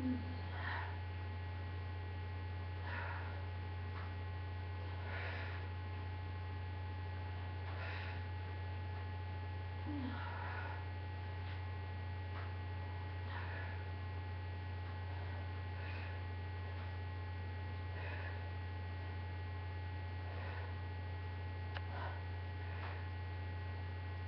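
Steady low electrical hum throughout, with faint short breaths about every two to three seconds during repeated shrug-and-calf-raise reps.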